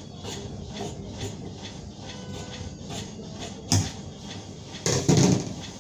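Tailor's scissors snipping through shirt fabric while cutting out a sleeve, a regular run of snips about two a second. A sharp knock comes a little before four seconds in, and a louder, longer burst of noise follows about five seconds in.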